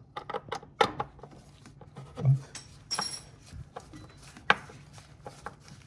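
Irregular clicks and taps of a plastic under-cabinet LED light fixture being handled and screwed by hand onto its mounting screws, with a brief scrape about three seconds in and a sharp click a moment later.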